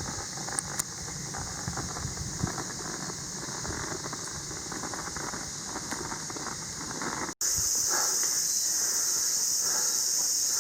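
A steady high-pitched hiss that breaks off abruptly about seven seconds in and comes back louder, with faint low knocks and rumble beneath it before the break.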